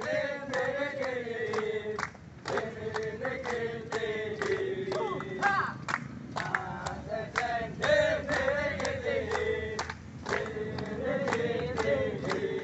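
A group of men singing a rhythmic chant in unison to hand clapping. The chant breaks off briefly twice, about two and ten seconds in.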